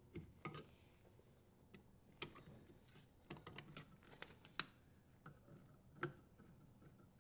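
Faint scattered clicks and light metal taps as the sheet-metal terminal box cover is handled and fitted back under a dishwasher. A flurry of clicks comes in the middle, and one sharper click near the end as a screwdriver works the cover's screw.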